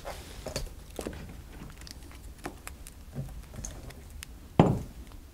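Scattered light clicks and taps of hands working with mounting hardware, with one louder knock about four and a half seconds in.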